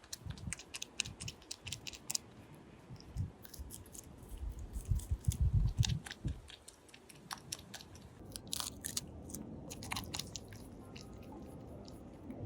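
An animal chewing and crunching food: irregular crisp cracks and bites with heavier low thuds partway through.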